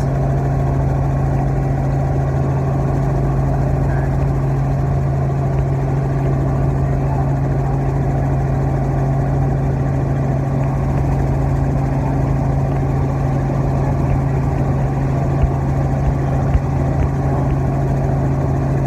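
Light helicopter in flight, heard from inside the cabin: the engine and rotor make a steady, unbroken drone with a strong low hum.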